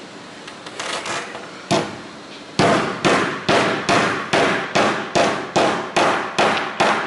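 Steel claw hammer driving metal fasteners into a plywood sheet: a few light taps, a single blow, then a steady run of about a dozen hard blows, roughly two and a half a second.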